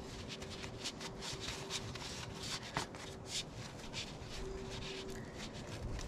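A cloth rag rubbing and wiping grease and grime off the underside of a motorcycle swingarm, in a run of short, quiet scrubbing strokes, with one sharp click a little under three seconds in.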